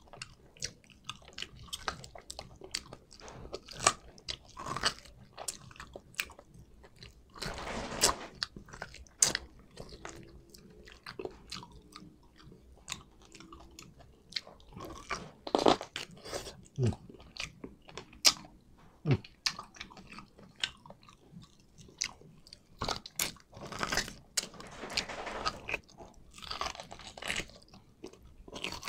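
A person biting and chewing on a chunk of boiled beef shank with tendon, with many irregular wet mouth clicks and a few longer noisy stretches of eating.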